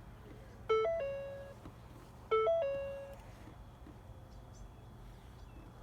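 Electronic chime: a short three-note beep pattern, a low note stepping up and then settling on a held middle note, sounding twice about a second and a half apart.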